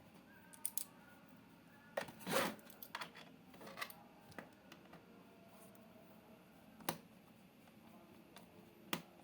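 Scattered small clicks and taps of hands handling a laptop and its small parts, with a brief louder scrape about two seconds in and sharp ticks near the end.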